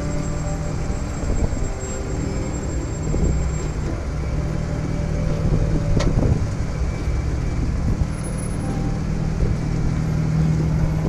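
Jeep's engine running steadily at low revs while crawling over granite rock, with one sharp knock about six seconds in.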